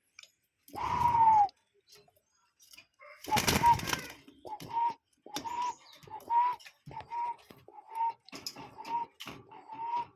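Bird calls: one drawn-out whistled note about a second in, a louder, noisier call around three and a half seconds, then a short whistled note repeated steadily, a little under twice a second.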